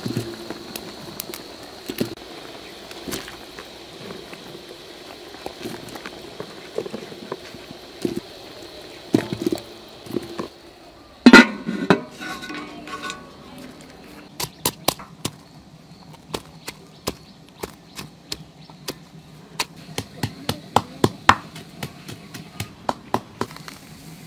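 Handling food in a metal pot of water with light knocks, then a metal pot lid set down with one loud ringing clang about eleven seconds in, followed by a long run of sharp knocks.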